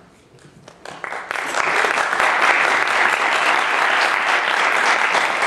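Audience applauding: a few scattered claps about a second in swell quickly into full, steady applause, which begins to die away near the end.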